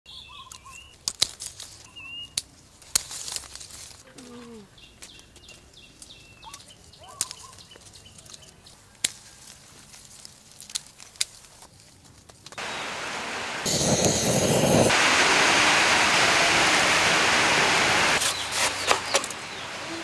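Quiet outdoor setting with small birds chirping and scattered sharp clicks; about twelve seconds in, a loud, steady rushing noise starts abruptly and runs for about five seconds before dropping away.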